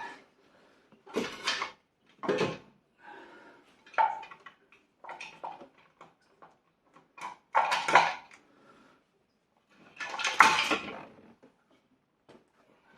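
Metal tools and engine parts clanking and clinking during an engine teardown: about seven separate knocks and rattles with a short ring, the loudest about eight and ten and a half seconds in.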